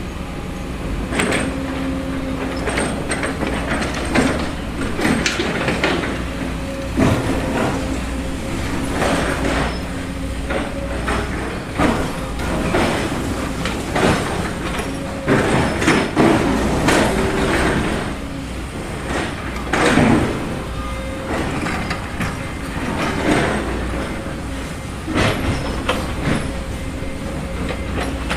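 Small electric motors of RC toy construction vehicles running with a steady whine, over irregular scraping and clattering.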